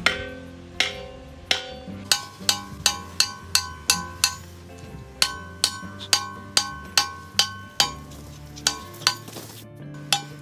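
Background music: a light tune of short struck, ringing notes in a steady bouncy rhythm.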